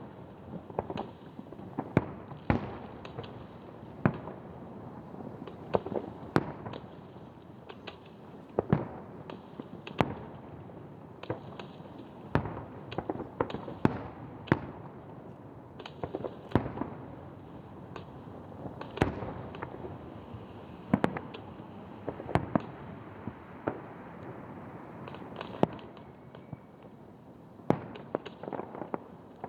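Aerial fireworks shells bursting: a fast, irregular run of sharp bangs, several a second at times, with a continuous noisy wash between them.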